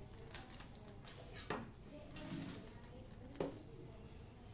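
A metal spoon clinking against a stainless steel bowl while scooping thick mango-cream mixture: three faint sharp clinks, the last the loudest.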